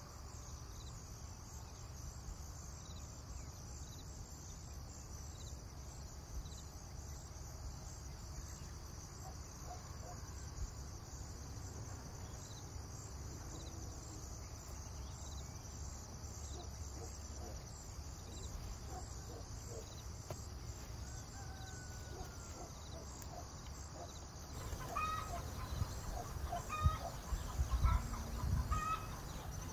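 Crickets chirring steadily, with hens clucking now and then. In the last few seconds the clucking gets louder and closer, along with a few low thumps.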